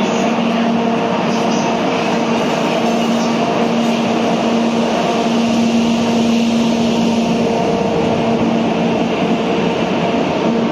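EF64 electric locomotive pulling out slowly and rolling past, with a steady droning hum from its machinery over running noise from the wheels and rails.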